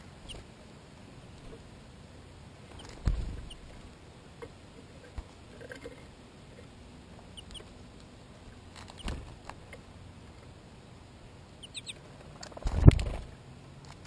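American goldfinches at a clear plastic seed feeder: light taps and clicks of pecking at the seed, and a few faint, short, high chirps. Two louder thumps, about three seconds in and near the end, come as birds land on or jostle at the feeder.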